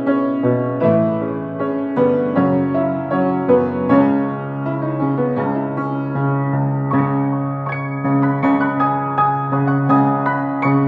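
Piano playing an instrumental passage of chords and melody notes, with no singing.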